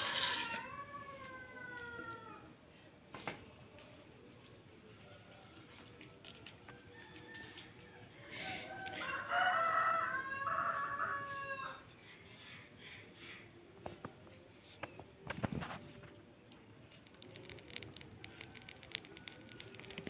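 A rooster crowing twice: one crow ending in a falling note right at the start, and a louder one about eight to eleven seconds in. Between and after the crows, faint clicks and scrapes come from a knife working on the civet's skin.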